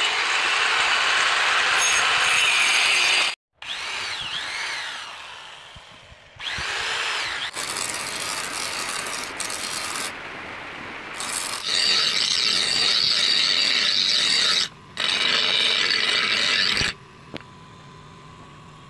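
Electric grinder running while a steel knife blade is pressed against its spinning wheel, grinding the blade, in several short cuts that stop and start abruptly.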